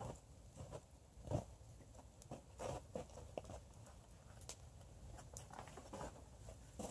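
Open wood campfire crackling, with scattered irregular pops and a few soft thumps.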